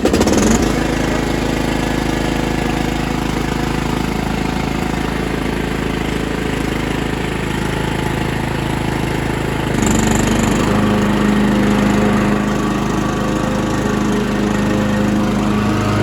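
A Mastercraft riding mower's 16 hp Briggs & Stratton Intek engine catches right at the start and runs steadily. About ten seconds in its note shifts and grows a little louder.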